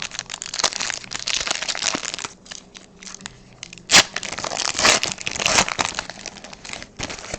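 Plastic wrapper of a hockey card pack being crinkled and torn open, a dense crackling with many sharp clicks and a loud snap about four seconds in.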